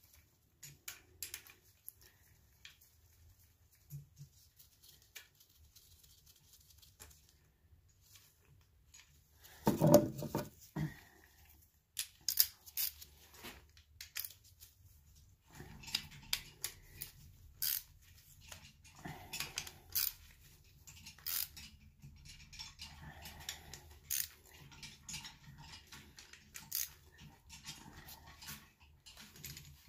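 Irregular metal clicks and clinks of a wrench on the rear main seal housing bolts of a Chevrolet 350 small-block engine block, as the bolts are tightened down. A louder dull thump comes about ten seconds in.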